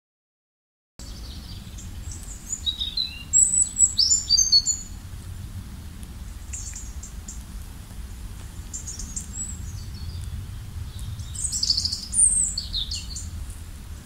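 Small birds chirping: quick high chirps and trills, bunched a few seconds in and again near the end, over a steady low rumble. It starts after about a second of silence.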